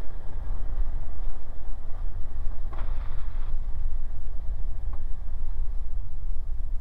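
Cabin noise of a CubCrafters NXCub light airplane on the ground in a grass field: its engine and propeller keep up a steady low rumble.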